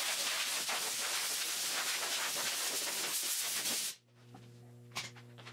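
Wire wheel on a power tool scouring paint off a car's steel bonnet panel, a dense hissing scrape that cuts off sharply about four seconds in. A low steady hum and a click follow.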